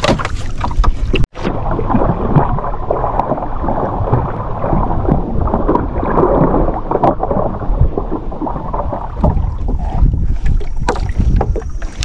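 Water splashing and sloshing with irregular small knocks, and wind buffeting the microphone; the sound cuts out for an instant just over a second in.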